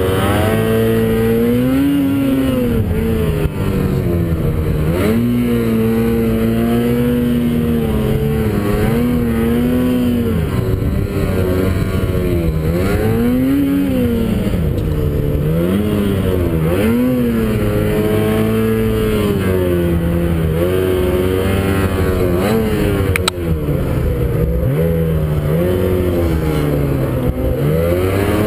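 Ski-Doo snowmobile engine under load in deep powder snow, revving up and down over and over as the throttle is worked.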